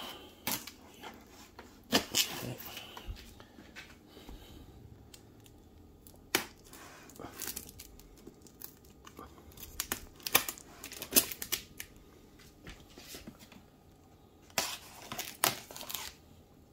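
Packing tape tearing on a plastic-wrapped cardboard shipping box, with the plastic wrap and cardboard crinkling. It comes in several separate bursts of tearing and rustling with quieter gaps between.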